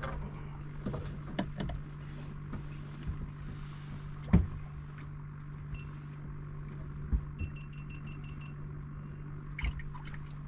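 A small electric motor on a fishing boat humming steadily, with a few sharp knocks, the loudest about four seconds in. A quick string of about eight short high beeps comes a little past the middle.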